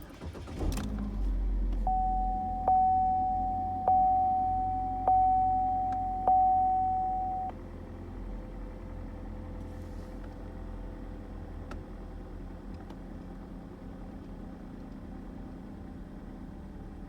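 Car engine starting, then idling steadily. During the first seconds the car's warning chime dings about five times, roughly one ding a second, then stops.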